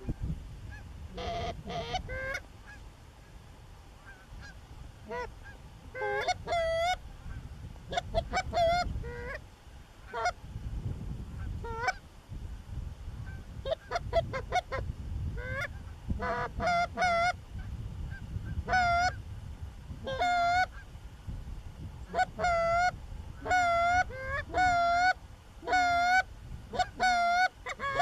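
Canada goose honks: many short, pitched calls, sparse at first and then coming about once a second toward the end, over a low rumble.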